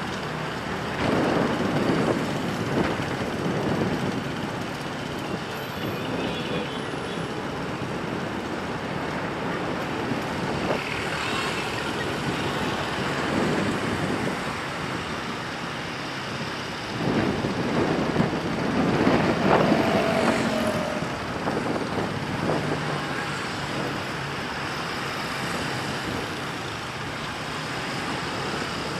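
Road traffic noise: vehicles passing, swelling louder twice.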